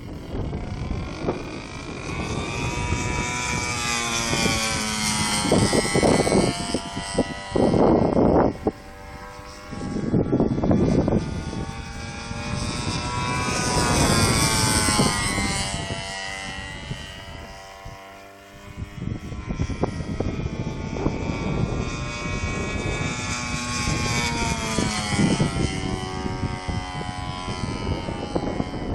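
Radio-controlled Edge 540 aerobatic model plane flying repeatedly past, its motor and propeller whine rising and falling in pitch with each of about three passes. Wind gusts buffet the microphone with low rumbles in the first half.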